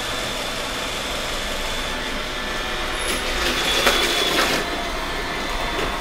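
iRobot Roomba 960 robot vacuum running: a steady whir from its vacuum fan and brushes with a high, even whine, as it drives across the tile floor onto a thick mat. The sound grows briefly louder about four seconds in.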